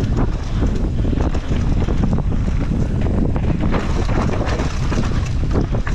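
Wind buffeting the microphone of a camera riding on a mountain bike at speed down a dirt trail, over a steady rumble of tyres on dirt with frequent rattles and knocks from the bike over the rough ground.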